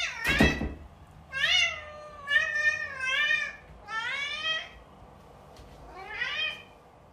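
A cat meowing about five times, each meow rising and then falling in pitch. A short loud rough burst comes just after the start.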